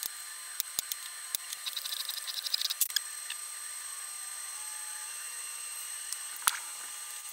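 Light metallic clicks and taps from hand tools and the aluminium Bosch P7100 injection-pump housing being handled on a workbench: a few single clicks, a quick run of about ten clicks around two seconds in, and sharper taps near three seconds and again near the end, over a steady faint hiss.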